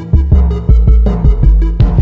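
Electronic background music with a heavy bass beat and a steady rhythm.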